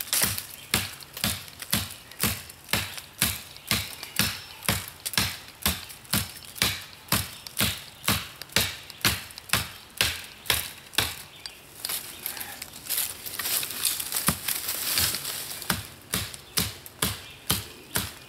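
United Cutlery Black Ronin tomahawk, a 420 stainless steel head, chopping rapidly at the base of a small sapling, about two and a half blows a second. The strikes grow less distinct and noisier for a few seconds past the middle, then the steady chopping resumes.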